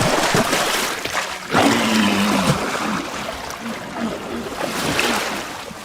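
Surf washing on a beach packed with walrus, with a few short, low bellows from the herd, the clearest about a second and a half in.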